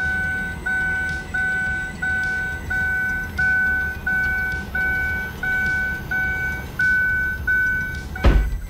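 The 2010 Chevy Camaro's interior warning chime sounding over and over, about three chimes every two seconds, over a low rumble. Near the end comes a single hard knock as the new dash trim is pressed into place.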